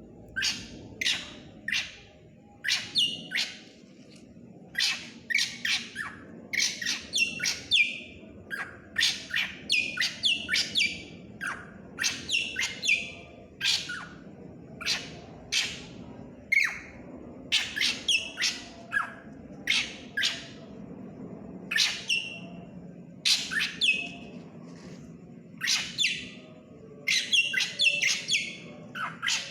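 A drongo (srigunting) singing persistently in full song. It gives a long run of short, sharp, varied calls, many sweeping down in pitch, in quick clusters with brief pauses between.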